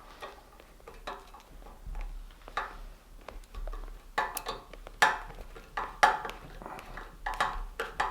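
Irregular metallic clinks and clicks from hand work on a metal seat frame while upholstery is fitted, the sharpest knocks about five and six seconds in.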